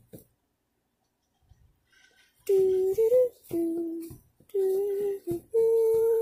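A woman humming a slow tune in long held notes that step up and down, beginning about two and a half seconds in after a near-silent pause.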